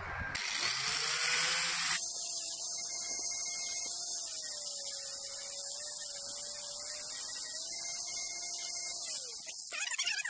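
Angle grinder running in a bench stand while a steel screwdriver shaft is held against its abrasive disc to cut it: a steady motor whine under a high grinding hiss, the whine dropping a little in pitch through the middle as the disc is loaded. The grinding stops shortly before the end.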